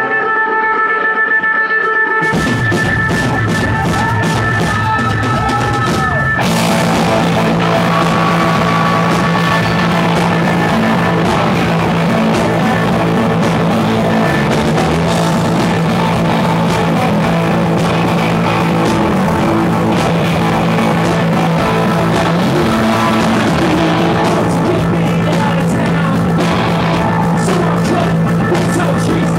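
Live rock band playing. An electric guitar holds notes alone at first; drums and bass come in about two seconds in, and the full band goes louder at about six seconds.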